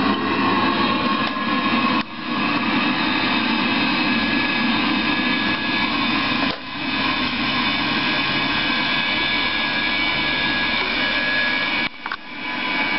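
Eberspächer Hydronic D5WZ diesel water heater running: a steady, noisy whir from its combustion-air fan and burner, with the level dipping briefly three times.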